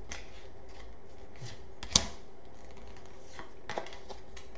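Faint handling of Pokémon card booster packs and cards: a few light clicks and rustles, with one sharp click about two seconds in.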